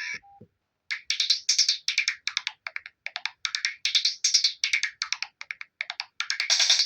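Samsung SGH-E630 ringtone made of rapid, short clicking beats, about four a second, after a brief silence. Near the end, a fuller, continuous melodic ringtone starts.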